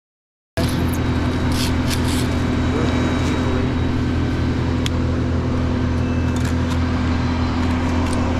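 Large engine running steadily at one constant pitch, cutting in abruptly about half a second in, with a few faint clicks over it.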